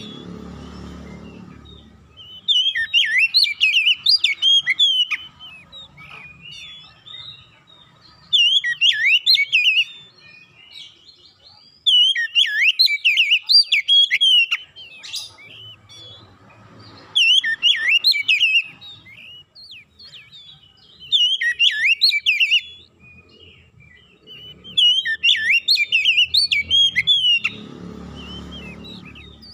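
Oriental magpie-robin (kacer) singing: about six phrases of quick, varied, rising and falling whistles, each a few seconds long, with short pauses between them. This is a song meant to draw the attention of other magpie-robins.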